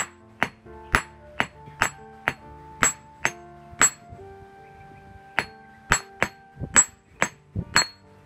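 Hand hammer striking a thin steel rod laid on a flat steel plate: sharp, ringing metal-on-metal blows about two a second, with a short pause about halfway through. Background music plays underneath.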